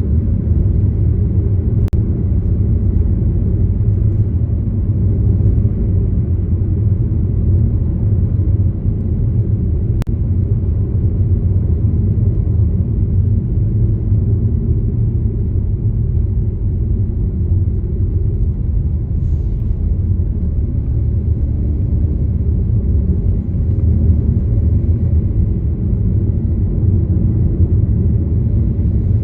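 Steady low rumble of a car on the move: road and engine noise with an even level, broken only by two faint ticks.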